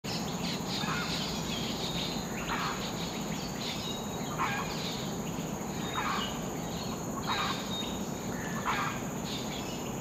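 A bird gives a short call about every second and a half, six times, over a steady high insect drone and low background noise.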